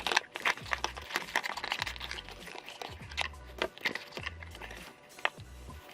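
Packaging crinkling and crackling in irregular bursts as a parcel is unwrapped by hand, over quiet background music with a steady bass beat.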